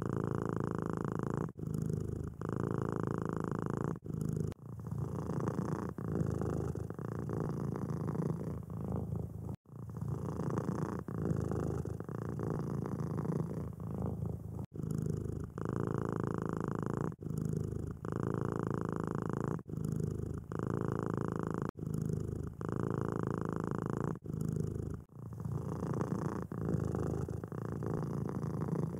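Domestic cat purring steadily. The purr breaks briefly every two to three seconds as the cat switches between breathing in and breathing out.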